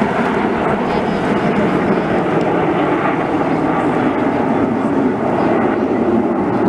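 Steady roar of aircraft engines overhead at an even level, with a faint steady hum running through it.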